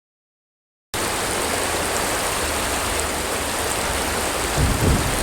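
Silence for about the first second, then the steady rush of flowing river water, with a brief low rumble near the end.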